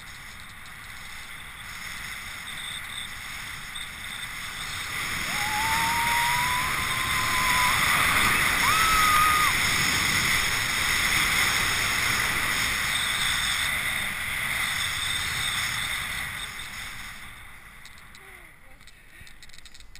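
Airflow of a paraglider in flight buffeting the camera microphone, swelling to a loud rush in the middle and easing off near the end. About a quarter of the way in, a thin rising whistle-like tone, then a shorter higher one, sounds over it.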